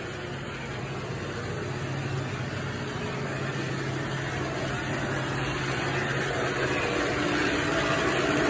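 Floor-cleaning machine's motor running with a steady hum, growing gradually louder.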